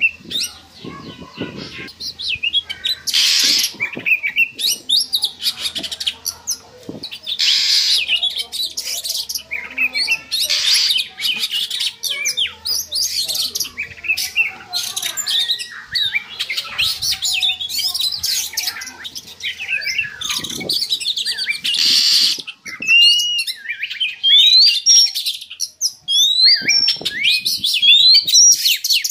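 Oriental magpie-robin's breeding-season song: a continuous run of varied whistles and chirps, broken by a few short harsh bursts, with quick rising whistles toward the end.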